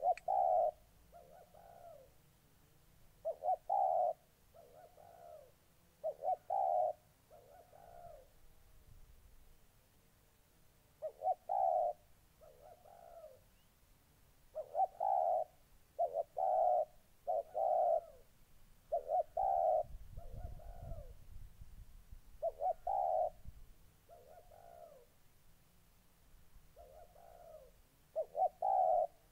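Spotted dove cooing: repeated low phrases of two or three coos each, every few seconds, the territorial calling of a dove in a fighting mood.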